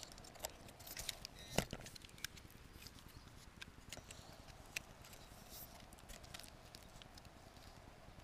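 Faint scattered clicks and knocks of a landed camera drone being picked up and handled, with one sharp knock about one and a half seconds in, then soft footsteps on grass as it is carried.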